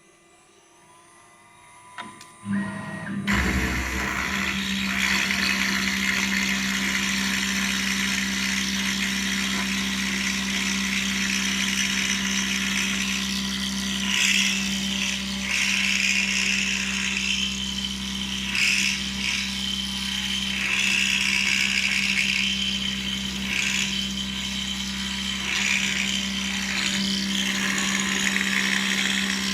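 CNC metal milling machine starting up about three seconds in after a few clicks, then running steadily with a constant low hum and a high hiss that rises and falls.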